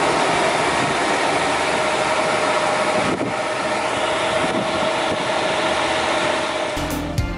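SAFO DZTA 63 double-disc sander running with no load, a steady whir and hum from its motor and spinning sanding discs. Music comes in near the end.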